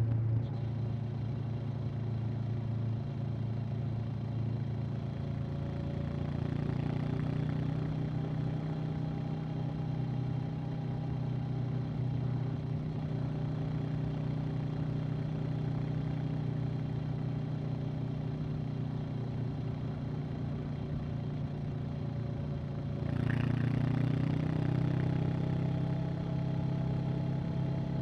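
Honda CB500X's parallel-twin engine and exhaust running at a steady cruise under way. About 23 seconds in, the rider opens the throttle and the engine note gets louder and rises.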